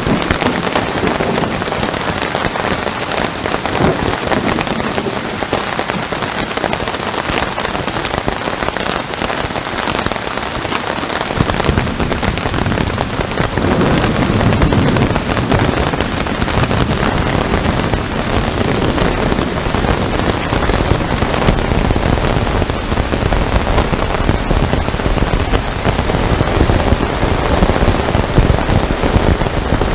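Heavy rain falling steadily, a dense even hiss of drops; about a third of the way in a deep low rumble joins it and stays.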